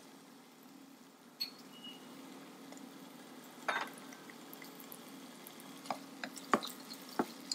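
Chopped onion and tomato frying softly in oil in a pot while a nylon slotted spatula stirs and knocks against the pan about five times, the sharpest knocks near the end, over a steady low hum.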